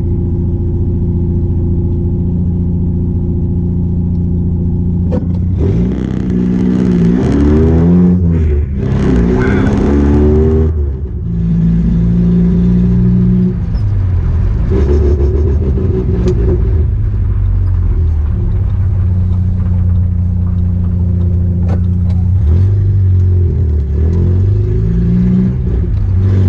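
1986 Nissan 720 pickup's engine running on an open header with no exhaust pipe, very loud while driving. The revs rise and fall several times about six to eleven seconds in and again near the end, with a steady drone between.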